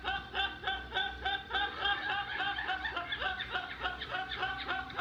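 A young man laughing uncontrollably in a rapid, unbroken run of short high-pitched bursts, about five a second.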